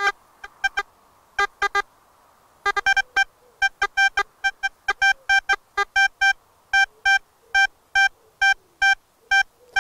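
Metal detector target tones: short electronic beeps, a few scattered at first, then a regular run of about two to three a second as the coil is swept back and forth over a target lying among iron. A faint low wavering tone sits underneath.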